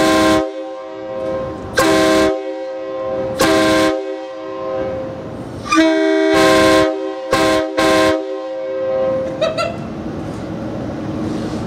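Multi-chime locomotive air horn sounding a chord in a series of about six short blasts, one held longer about six seconds in. Between blasts the chord carries on more quietly, and it dies away near the end.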